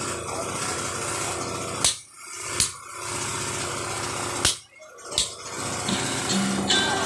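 Blacksmith's hammer striking metal four times, sharp single blows over a steady rushing noise.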